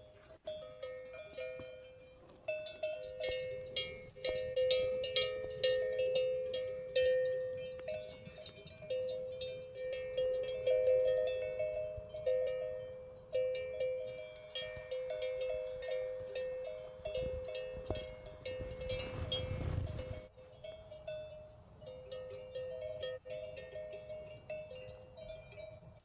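Metal bells clanking irregularly, each strike ringing on at the same pitch, with a brief low rumble about two-thirds of the way through.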